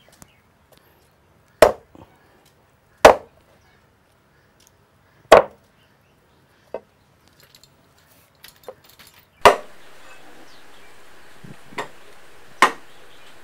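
Heavy cleaver chopping through a pig's trotter, skin and bone, on a thick round wooden chopping block. Five hard, sharp chops come one to three seconds apart, with a few lighter taps between them.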